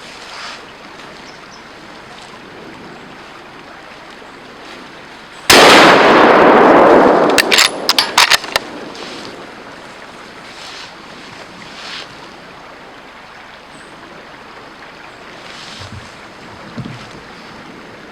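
A deer rifle fired once about five and a half seconds in: a sudden, very loud shot that rolls on for about two seconds, then a few sharp clicks.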